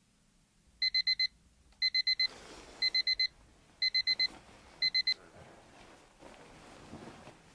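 Digital alarm clock beeping: quick groups of four high beeps, repeated five times at about one group a second, then it stops.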